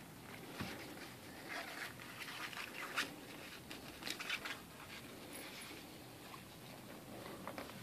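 Dry grass and straw rustling and crackling in irregular little clicks as border collie puppies scamper over it after a training flag dragged along the ground.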